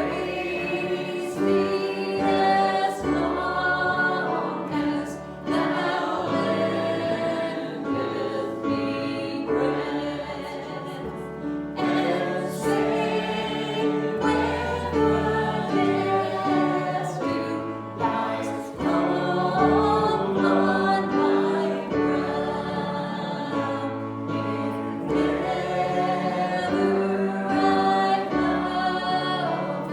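Worship music: a group of voices singing a gospel-style song over instrumental accompaniment with a moving bass line.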